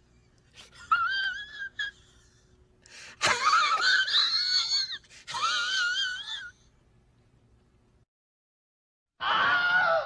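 A person's high-pitched wheezing, wavering up and down in pitch, in three bouts over the first six and a half seconds, the middle one the loudest. After a few seconds of silence, a different short sound starts near the end.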